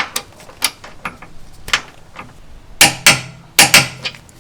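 Torque wrench clicking on a chassis-bar bolt being tightened to 60 foot-pounds: a string of sharp metallic clicks at uneven spacing, the loudest in two close pairs near the end.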